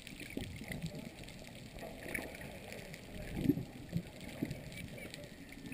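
Muffled water sloshing and gurgling around an underwater camera just below the surface, a low steady wash with a few faint short blips.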